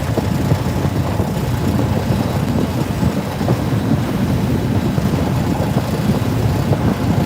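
Fishing boat under way, its engine and hull giving a steady low rumble.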